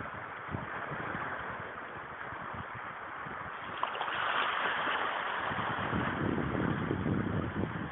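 Steady wash of sea water with wind buffeting the phone's microphone. The low gusty rumble grows heavier about five and a half seconds in.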